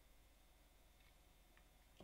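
Near silence: room tone with a low hum and a faint tick about a second in.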